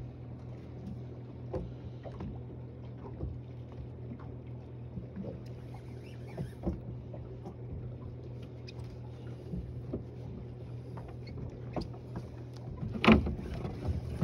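A boat's motor running with a low, steady hum, water splashing against the hull, and scattered small knocks, with one louder knock near the end.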